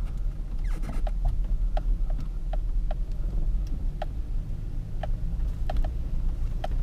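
Truck running, heard from inside the cab: a steady low engine and road rumble, with short squeaks or ticks coming at irregular intervals every half second to a second.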